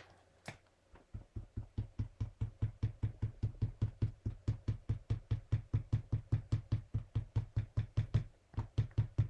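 Rapid, even tapping on a table, about five knocks a second, starting about a second in: ink being dabbed onto the vinyl sticker paper to build up the artwork.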